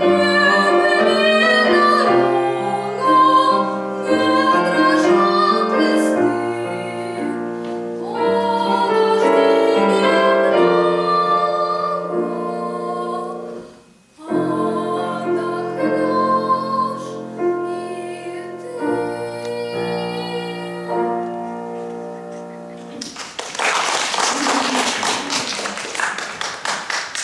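A young girl sings a classical art song in trained academic style, accompanied on a Schimmel grand piano, with a brief pause about halfway through. The song ends about four seconds before the close and the audience applauds.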